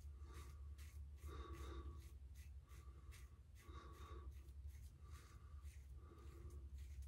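Baili BD179 double-edge safety razor scraping stubble through shaving cream on the neck in short, quick strokes, about two or three a second. Faint, over a low steady hum.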